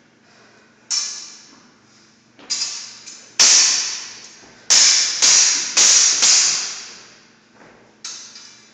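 Sword blades clashing, a hand-and-a-half sword against a Highland basket-hilted broadsword: about eight sharp strikes, each ringing on briefly after the hit. A quick run of four or five strikes comes in the middle.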